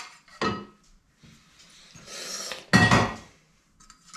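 Metal angle stock being handled and knocked together: a couple of light knocks, a short scrape, then one loud clank with a brief metallic ring about three-quarters of the way through.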